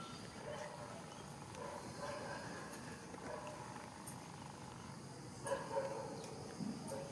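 Young macaques giving short, even-pitched calls, repeated every second or so, with two sharp knocks a little after five seconds in.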